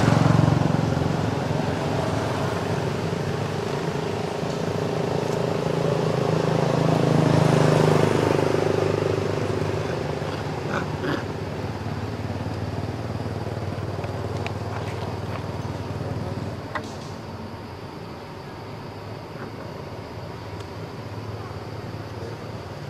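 A motor vehicle's engine running with a steady low drone, growing louder until about eight seconds in and then fading away, as of a vehicle passing by. A few faint clicks follow in the quieter second half.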